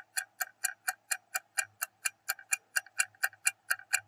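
Clock-ticking sound effect of a quiz countdown timer: a fast, even tick, a little over four ticks a second.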